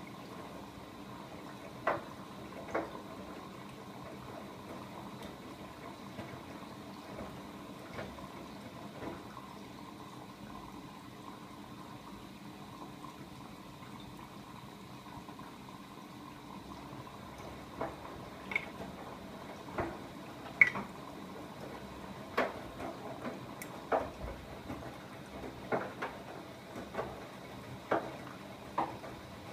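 Siemens iQ700 front-loading washing machine in its wash phase: the drum turns with water sloshing over a steady machine hum. Sharp knocks come twice early on, then roughly once a second through the second half.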